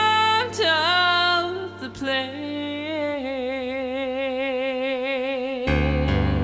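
A song: a singer holds long notes, wavering with vibrato, over sustained accompaniment, and low bass notes come in near the end.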